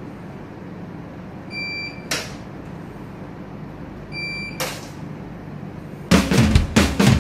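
A short, high electronic beep sounds twice, about two and a half seconds apart, each followed a moment later by a brief whoosh, over a steady low hum. Loud music with a drum kit cuts in about six seconds in.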